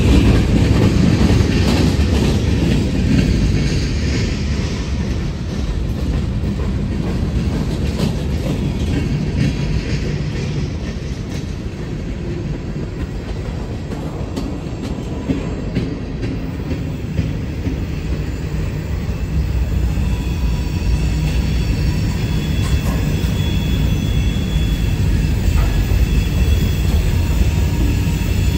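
A Norfolk Southern freight train's cars roll past in a steady rumble of wheels on the rails. Thin high-pitched wheel squeal comes in during the second half.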